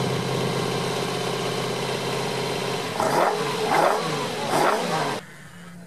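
Citroën car engine idling steadily, then blipped three times in quick revs from about three seconds in. The sound cuts off abruptly near the end, leaving a fainter steady engine hum.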